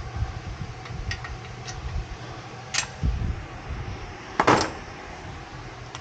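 Metal hand tools clinking during a wheel hub job: a few light metallic ticks, then a louder clank about four and a half seconds in, over a steady fan hum.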